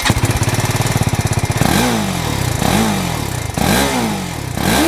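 TVS Apache RR310's single-cylinder engine on its stock exhaust, idling with a fast even beat just after starting. From about one and a half seconds in, the throttle is blipped four times, each rev rising quickly and falling away.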